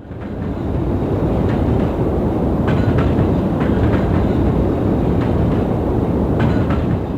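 Ambient sleep-noise recording of a train on the rails: a loud, steady low rumble with occasional faint squeals and clicks. It fades in at the start and fades out near the end.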